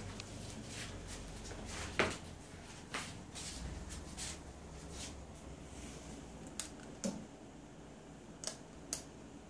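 Quiet room tone with a low steady hum and a scattering of sharp, brief clicks and taps, the loudest about two seconds in.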